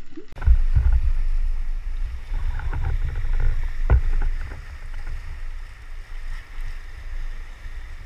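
Brief muffled underwater sound, then from about half a second in a heavy low rumble of wind buffeting the camera microphone, over sea waves washing against rocks. A single sharp knock comes about four seconds in.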